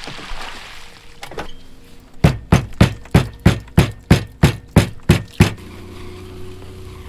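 A rapid, evenly spaced series of about eleven heavy knocks, roughly three a second, starting about two seconds in and stopping after about three seconds.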